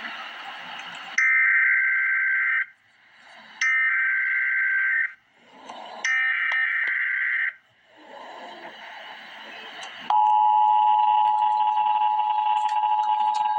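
Emergency Alert System tones. First come three bursts of the screeching digital SAME header, each about a second and a half long, with hiss between them. Then, about ten seconds in, the steady two-tone attention signal starts and holds.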